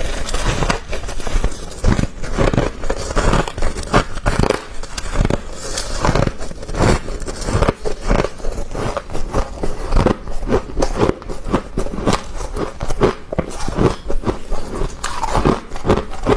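Freezer frost being bitten and chewed close to the microphone: a rapid, irregular run of crunches.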